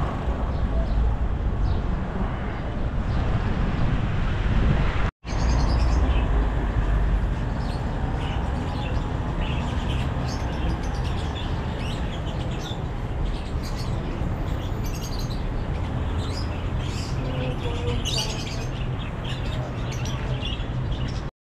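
Small birds chirping repeatedly over a steady low background noise, with a brief break to silence about five seconds in.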